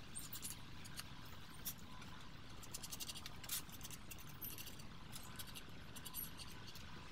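Pencil drawing lines on redwood: faint, irregular scratchy strokes over a steady low hum.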